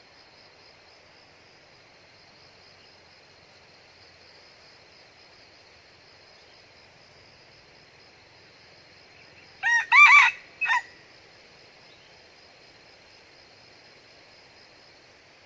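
A junglefowl crowing once, a brief crow of about a second broken into three parts (short, longer, short), about ten seconds in. A faint steady high insect buzz runs underneath.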